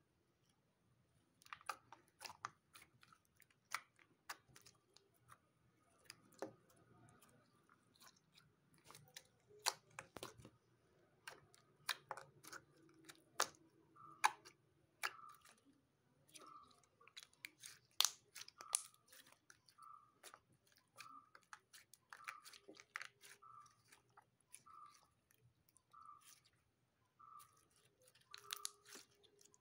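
Slime being kneaded and squeezed by hand, making sticky clicks, squelches and small air-pocket pops. In the second half the pops fall into a steady rhythm of about one a second.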